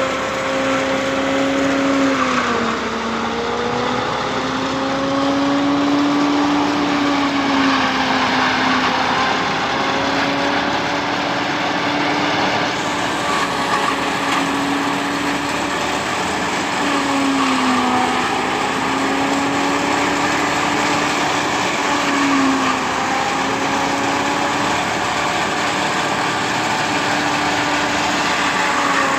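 Silage-making machine running continuously: a loud steady hum over a dense mechanical din, its pitch sagging briefly now and then.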